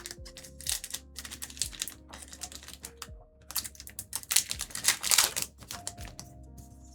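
A trading card booster pack being opened and its cards handled: a quick run of crinkling and clicking from the foil wrapper and the card stack, busiest in the middle, over quiet background music.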